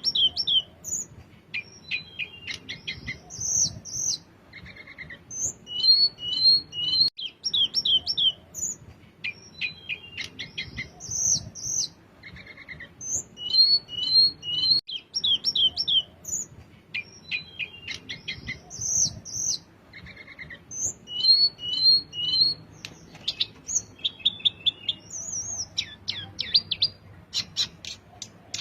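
A sulingan, a small Indonesian flycatcher, singing: phrases of high, clear whistled notes and quick runs of notes, repeating about every six or seven seconds.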